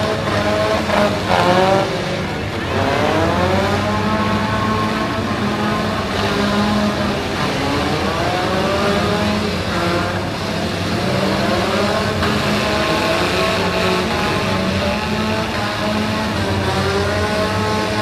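Several four-cylinder demolition derby car engines running and revving at once, their pitches rising and falling as the cars ram and push each other. A few loud knocks come about a second in.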